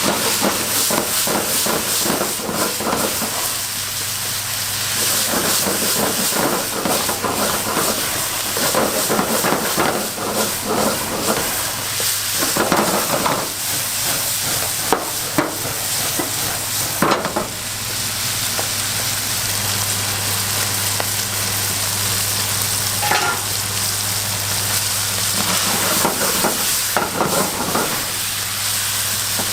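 Food sizzling in a hot pan, with repeated scrapes and clicks of a cooking utensil stirring and tapping against it, over a steady low hum.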